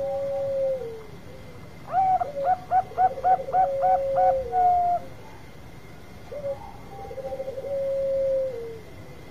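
Bangkok-type zebra doves cooing. A rolling trill runs into a held note that falls off at the end; the phrase comes once at the start and again about six seconds in. From about two seconds in, a louder, higher series of about eight clipped coos lasting some three seconds sounds over another trill, so more than one dove is calling.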